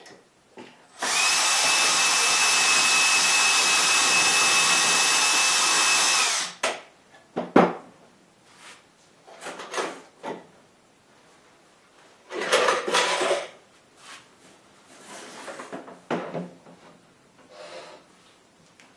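Half-inch electric drill running at one steady speed with a thin whine for about five seconds, then shutting off. Knocks and scraping follow as the drill is handled and pulled out of its mount.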